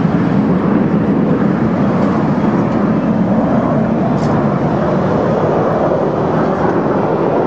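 Jet engines of a formation of Canadair CT-114 Tutor jets in flight, a steady rumble of turbojet noise.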